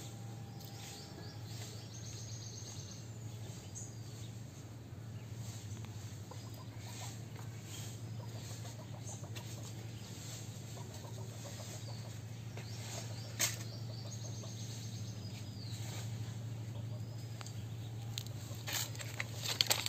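Chickens clucking and small birds chirping over a steady low hum. There is one sharp click about thirteen seconds in and a few more clicks near the end.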